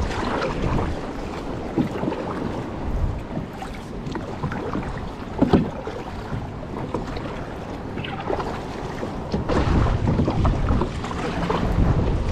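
Kayak paddling on open sea water: paddle strokes splashing and water slapping the hull, with wind buffeting the microphone. One brief, louder sound stands out about five and a half seconds in.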